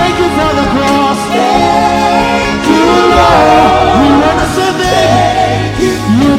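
Live church worship music: a singer's voice gliding and wavering through long held phrases over sustained keyboard and bass notes.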